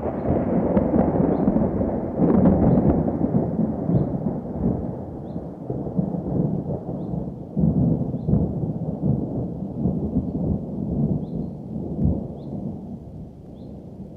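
Thunder rolling: a long, low rumble that swells several times and then slowly fades away.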